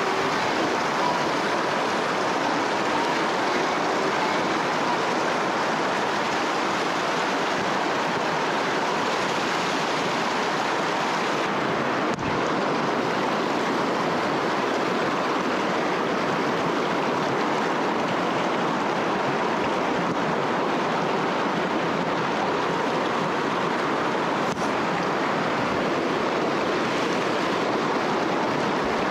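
Steady rushing of river water, an even hiss of moving current.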